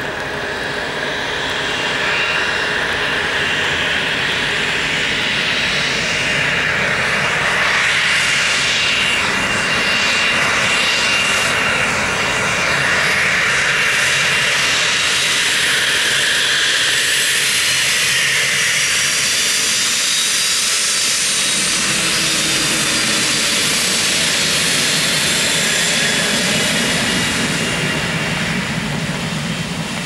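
Twin Pratt & Whitney Canada PW545B turbofan engines of a Cessna Citation XLS business jet running at taxi power close by: a steady jet hiss with high whining tones. About two-thirds of the way in a deeper rumble of jet exhaust builds beneath the whine.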